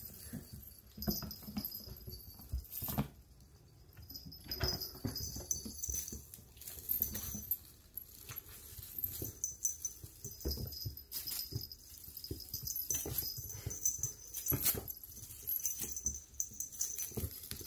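Bengal kittens scampering and pouncing on a tile floor: many scattered light thumps and taps, with the rustle of a shiny wand toy and brief animal cries now and then.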